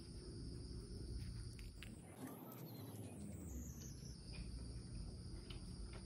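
Faint background ambience: a steady high-pitched insect drone over a low rumble, with a few light clicks. The higher tone slides down in pitch about two seconds in.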